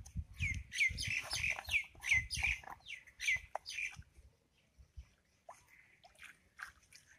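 A bird calling a quick run of short chirps, about three a second, which stops about four seconds in, leaving only faint scattered clicks. Soft low handling thuds sound beneath the chirps.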